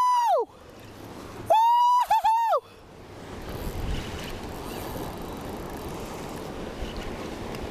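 High-pitched, drawn-out excited yells from an angler who has just hooked a fish: one ends about half a second in, and a second, wavering one runs from about a second and a half to two and a half seconds in. Then steady surf breaking on the jetty rocks, with wind noise on the microphone.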